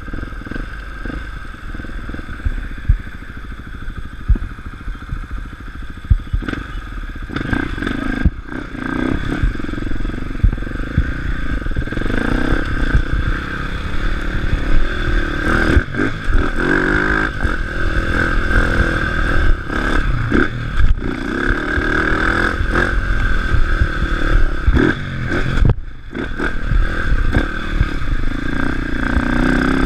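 Dirt bike engine heard from on board while riding a rough dirt track, the throttle opening and closing as it revs up and down, with a few brief throttle-offs. Knocks and clatter from the bike over the bumps and wind rumble on the microphone run under it.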